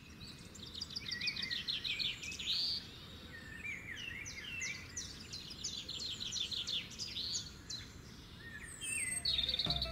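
Several birds singing and calling, with quick runs of short repeated chirps, over a steady low background rumble.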